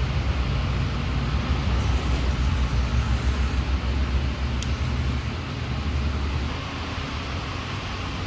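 A motor vehicle engine running with a low rumble, easing off about six and a half seconds in.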